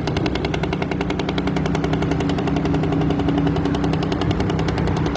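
Heavy dump truck's diesel engine, its exhaust a loud, steady stream of rapid, evenly spaced pulses over a steady low tone.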